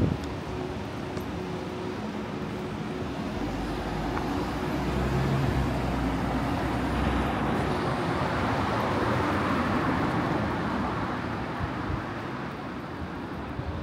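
Road traffic: a vehicle drives past. Its low engine rumble and tyre noise build over several seconds, peak a little past the middle, then fade away.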